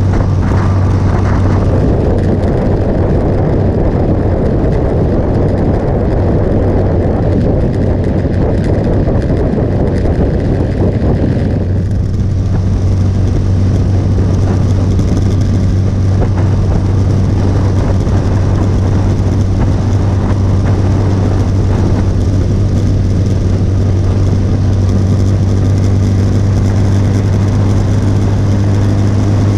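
Motorcycle engine running at a steady cruise, with wind and road noise rushing past; the rushing lessens about twelve seconds in.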